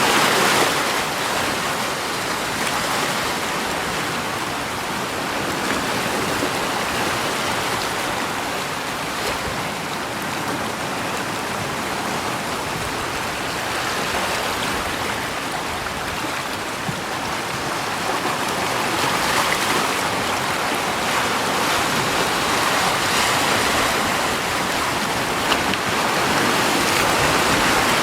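Continuous rushing water, an even hiss that slowly swells and eases in loudness.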